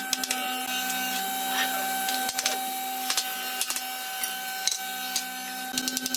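A small electric motor runs with a steady whine, while irregular clicks and taps sound over it.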